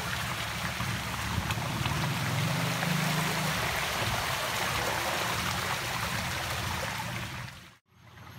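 Mountain bike tyres splashing through shallow floodwater, a steady rush of churned water, cut off suddenly near the end.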